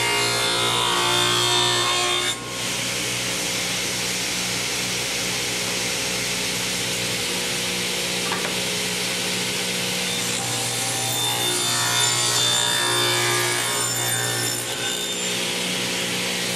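Table saw running with a steady motor hum, its blade cutting through eastern red cedar for the first two seconds or so and again from about ten to fifteen seconds in; in between, the blade spins free.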